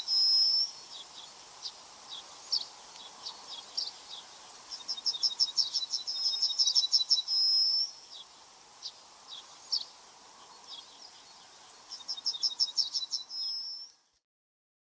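A songbird singing: three phrases, each a fast, high trill ending in a short held whistle, with single chip notes between them. The audio drops to dead silence about a second before the end.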